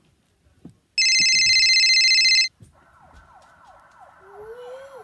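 A toy ambulance siren. First a loud, piercing electronic tone sounds for about a second and a half and cuts off sharply. Then a fast siren wail of quick falling sweeps, about three a second, starts. Near the end a lower rising wail joins it.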